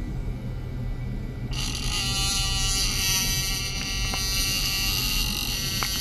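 A high-pitched electronic whine made of many steady tones comes on suddenly about a second and a half in, from an ultrasonic oscillator driving a probe in a glass of water. It sits over a steady low hum, and faint ticks begin near the end.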